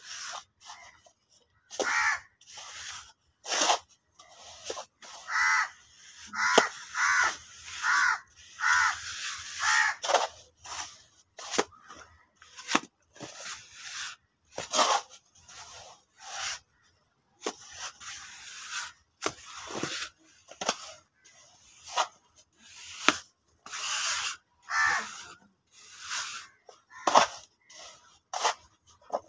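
Hand trowels slapping and scraping wet cement mortar on a wall in quick, irregular strokes, dabbing the fresh plaster into a rough texture.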